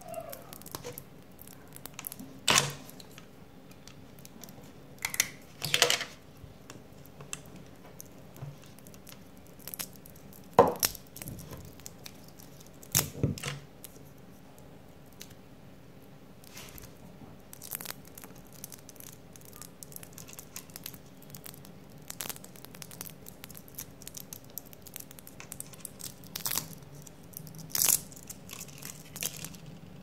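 Handling noise of twisted-pair wires being pulled out of a length of Cat 5 network cable jacket: irregular small clicks and rustling, with about half a dozen louder short scraping bursts as the wires slide out.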